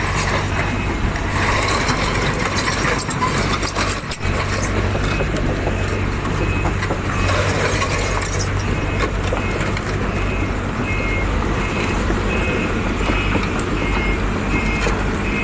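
Heavy construction machine's engine running steadily, with a back-up alarm beeping about twice a second from about five seconds in as the machine reverses.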